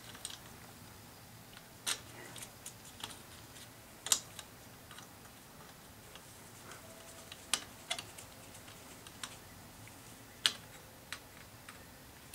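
Sparse, irregular sharp clicks and light metallic taps from tools and metal parts being handled while the new blower motor is fitted into the furnace's blower housing.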